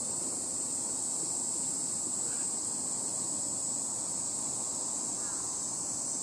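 A chorus of insects, a steady high-pitched buzz that holds unbroken.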